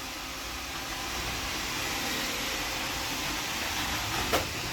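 Roomba robot vacuum running steadily, its motor and brushes giving an even whirring hiss, with a brief sharp sound near the end.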